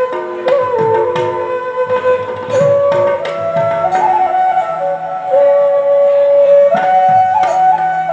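Assamese borgeet devotional music: a melody in long, steady held notes that step up and down in pitch, over hand-drum strokes whose deep tone drops after each hit and sharp, bright strikes.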